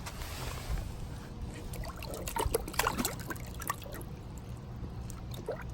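Water trickling and dripping with small splashes as a large koi is handled in water, over a steady low hum.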